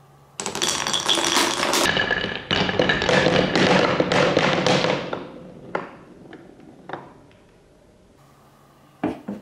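Small balls rattling and clattering down through the channels of a wooden Cuboro block marble run, a dense run of wooden clicks for about four and a half seconds, then coming out one after another into a wooden tray, with a few last separate clicks as they settle. Two sharp knocks near the end.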